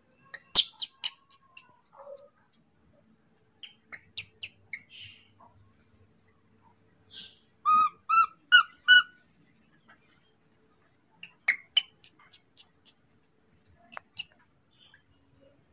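A baby monkey's short, high chirping squeaks, four in quick succession about halfway through, amid scattered sharp clicks and taps.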